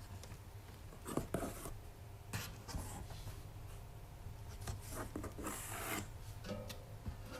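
Packaging being handled and unpacked: several irregular short rubs and scrapes, with a faint steady low hum underneath.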